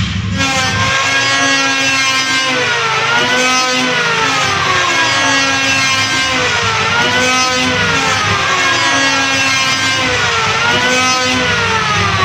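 Electric wood planer running, its whine slowly sagging in pitch, then quickly climbing back, about every three and a half seconds as it takes cuts.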